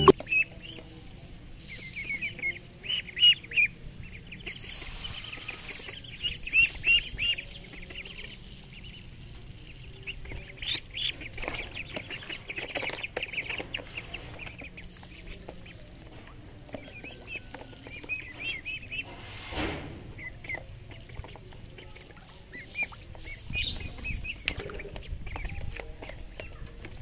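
Ducklings peeping: runs of short, high-pitched peeps that come and go, with occasional splashing as they paddle in shallow water.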